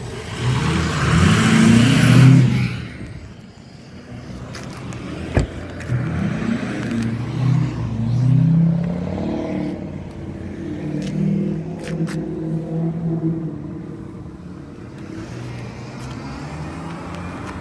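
Motor vehicles driving by, their engine pitch rising and falling, with a loud hiss in the first two seconds and one sharp knock about five seconds in.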